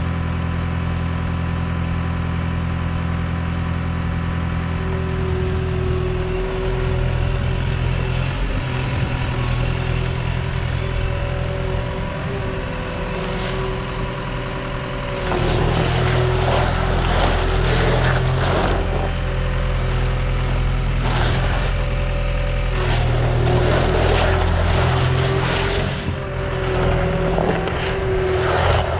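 Gehl V400 skid steer's diesel engine running steadily, revved up louder several times from about halfway through.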